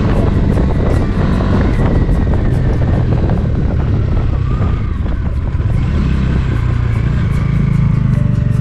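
Bajaj Dominar 400 single-cylinder engine running under way with road noise as the motorcycle slows for a hairpin bend, over background music.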